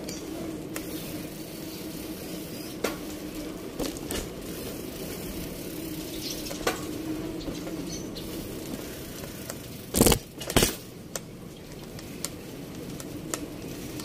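Urban alley ambience: a steady low hum with scattered light clicks, and two loud sharp bangs about half a second apart some ten seconds in.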